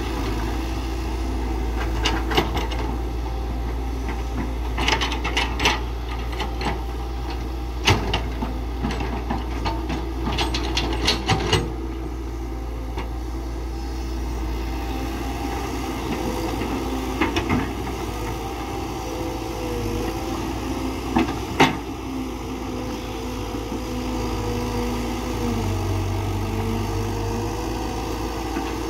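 Diesel engine of a CAT 312BL hydraulic excavator running steadily at working speed, with its pitch wavering slightly under load. Over it come irregular clusters of sharp knocks and clatter from the bucket digging into rock and soil.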